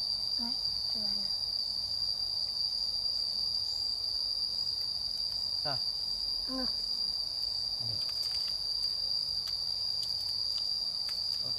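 Insects chirring in one steady high-pitched tone that never breaks, with a few faint, brief voice sounds.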